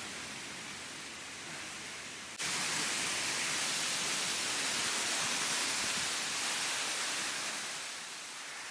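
Steady rushing of water pouring over a concrete weir, heard as an even hiss that gets suddenly louder about two and a half seconds in.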